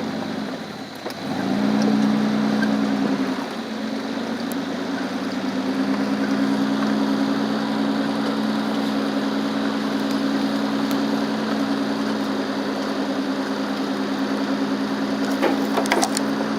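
Car running, heard from inside the cabin: a steady engine hum over road and fan noise, with a few clicks near the end.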